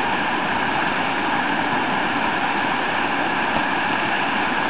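Whitewater rushing steadily as the river pours over and breaks on a standing wave in a rapid.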